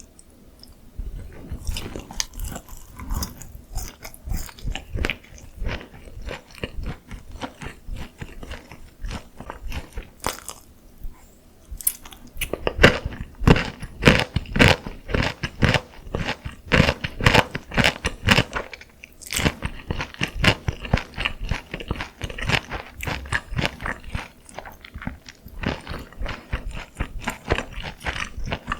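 Close-miked eating of sauce-coated Korean fried chicken (dakgangjeong): crisp crunching bites and chewing in quick irregular crackles, with a short lull partway through, then a busier run of loud crunching.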